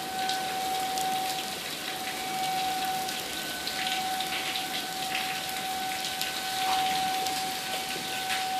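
Tornado warning siren holding one steady tone, fading briefly just past the middle and coming back, over a steady hiss.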